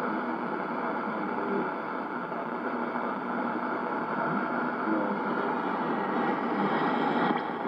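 Shortwave AM reception through a Yaesu FRG-7 receiver's speaker: a steady hiss of static with a faint voice buried beneath it, the sign of a weak, distant signal from Radio Vanuatu on 9960 kHz.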